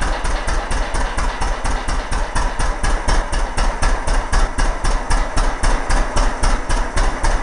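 Circa-1917 Palmer 12 hp two-cylinder marine engine running at a steady idle, firing in sharp, even beats about five a second.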